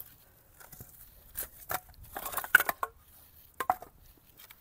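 Split firewood pieces being handled and set down on the ground, making several short wooden knocks and clatters between about one and four seconds in.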